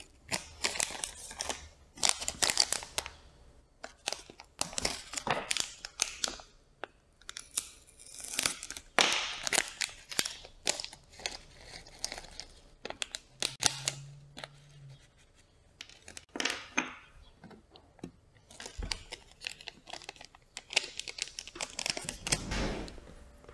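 Metallized anti-static plastic bag being torn open and crinkled in the hands, in irregular rustling bursts.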